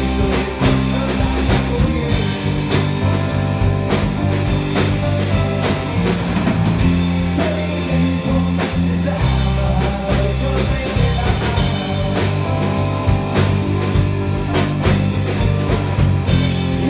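Live rock band playing: drum kit keeping a steady beat under bass guitar and guitars.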